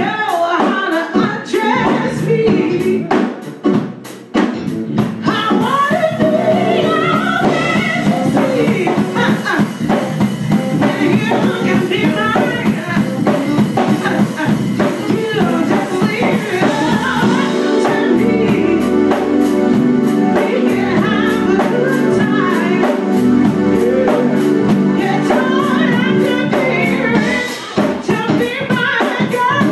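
Live band music: a female singer over keyboard chords and a drum kit. The drums play busily at first, thin out while the keys hold long chords under the voice, and come back in strongly about two-thirds of the way through.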